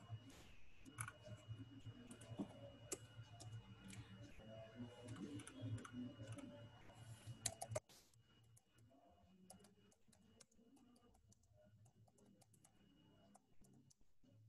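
Faint typing on a computer keyboard: irregular, scattered key clicks. A low background hum drops away suddenly about eight seconds in.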